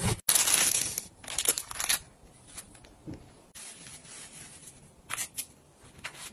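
Packing tape on a cardboard box slit and torn open with a blade: several loud tearing strokes in the first two seconds. A few short, softer rustles of fabric follow near the end as a knitted waist band is tugged into place.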